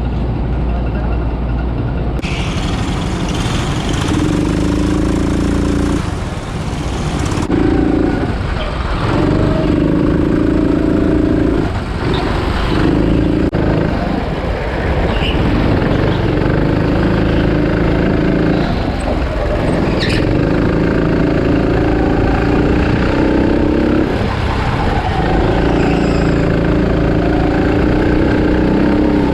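Car engine pulling through the gears: its note climbs, drops at each shift, and climbs again, several times over.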